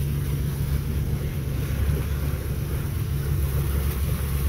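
Runabout motorboat cruising slowly at about 5 mph: the engine runs with a steady low drone under wind noise buffeting the microphone.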